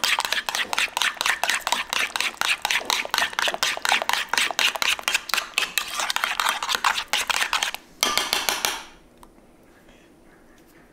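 Metal spoon stirring a thick yogurt mixture in a ceramic bowl: a rapid run of clinks and scrapes against the bowl, with a short denser scrape about eight seconds in, then it stops.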